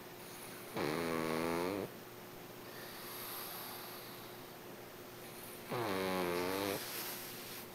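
A sleeping pet snoring: two long, buzzing snores about five seconds apart, with faint breathing between them.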